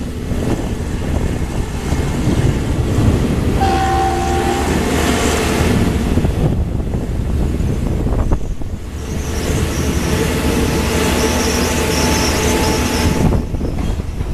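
State Railway of Thailand passenger coaches rolling past on the rails: a steady, loud rumble of wheels on track, with a brief tone about four seconds in.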